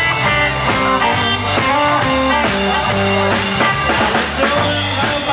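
A live band playing 1950s-style electric blues: electric guitar over drums and bass with a steady beat.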